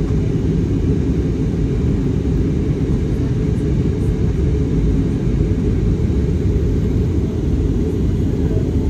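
Airliner cabin noise in flight: the engines and rushing air make a steady, deep rumble with no change throughout.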